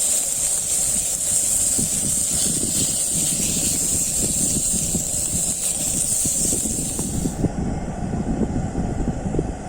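A steady high-pitched hiss that cuts off abruptly about seven seconds in, over continuous low rumbling noise.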